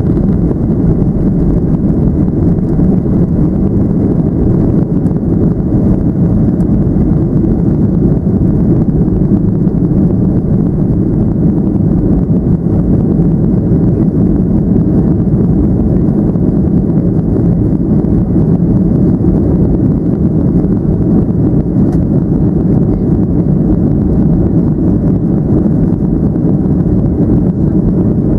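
Inside the cabin of a Boeing 737-800 during takeoff and initial climb: the CFM56 engines at takeoff power and the rushing airflow make a loud, steady, deep rumble.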